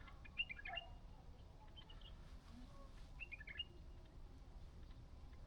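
Faint birds chirping across the water, in short clusters of quick high notes, a first group just after the start and another a little past the middle.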